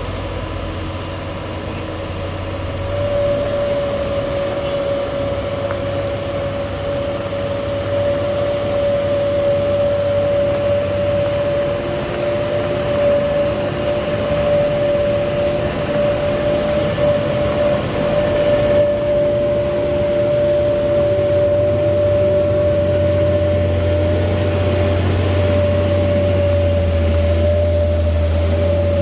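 Heavy vehicle's engine running steadily, a constant whine coming in a few seconds in over a low hum that grows stronger in the last third.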